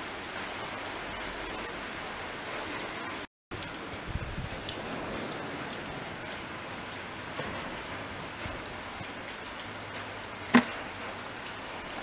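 Steady hiss of rain falling, with one sharp knock near the end.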